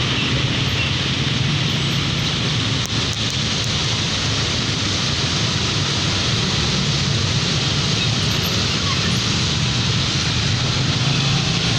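Steady low engine hum from a vehicle under a constant hiss of rain and wet-road noise.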